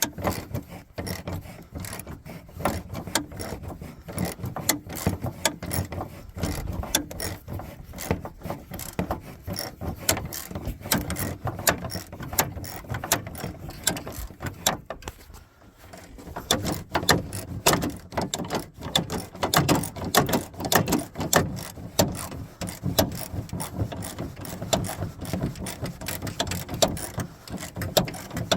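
Hand ratchet wrench clicking in quick runs as the hood latch bolts are backed out, with a short pause about halfway through.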